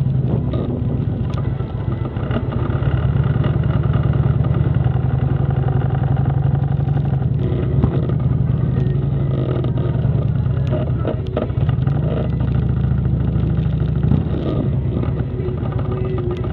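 Motorcycle engine running at low speed, a steady low note that dips and rises slightly with the throttle.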